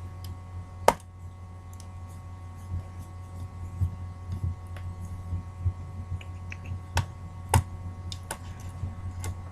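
A few sharp clicks and softer knocks as laptop parts are handled and pried out, over a steady low hum.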